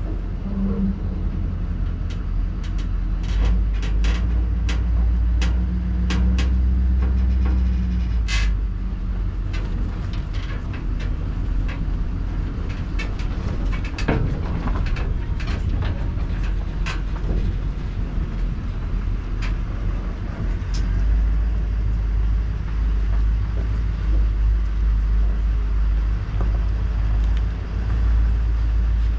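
Chevrolet C5500 dump truck's Duramax diesel running as it pulls a gooseneck trailer, a steady deep rumble. Sharp rattles and knocks come through it, most of them in the first nine seconds.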